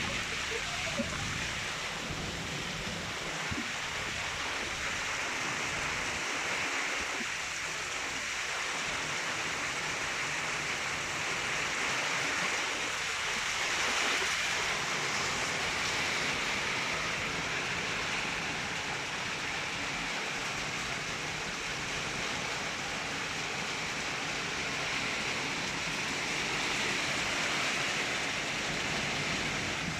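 Hailstorm: hail and heavy rain coming down in a steady hiss, swelling slightly about halfway through.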